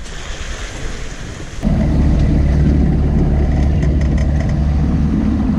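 Wind and sea rushing past a sailing yacht. About two seconds in it jumps to a much louder low rumble with a steady low hum, wind buffeting the microphone.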